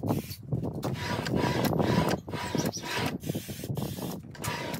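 Dry lubricant sprayed from an aerosol can onto a sliding mitre saw's steel rails, mixed with rubbing and sliding noises from the saw in strokes a second or two long.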